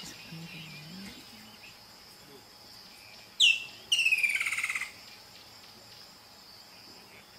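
An animal call about three and a half seconds in: a short sharp cry that falls in pitch, followed by a longer, pulsing call that also falls. A steady high insect drone runs underneath.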